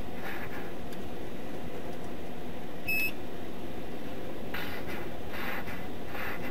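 Steady low hum of an idling police cruiser heard from inside, with one short high electronic beep about three seconds in.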